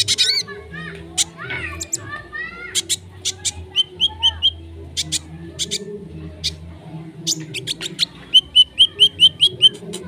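Konin bird singing: a varied song of sharp high chirps and sweeping whistled notes, with two quick runs of repeated notes, one about four seconds in and a longer one near the end.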